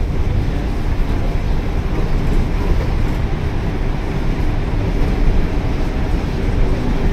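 Otokar Vectio C city bus under way, heard from inside the cabin near the front: a steady low engine and road rumble.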